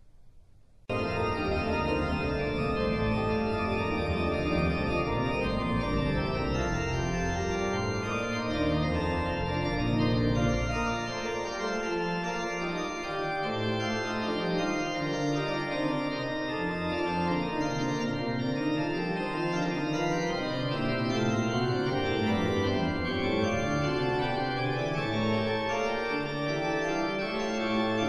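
Organ music playing sustained, slowly changing chords, starting abruptly about a second in.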